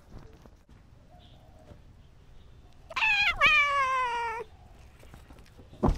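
A cat's single long meow, lasting about a second and a half and falling in pitch toward its end. A short thump comes just before the end.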